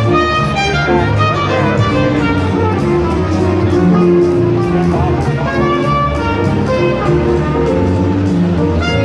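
Loud instrumental music with sustained melody notes over a strong bass line.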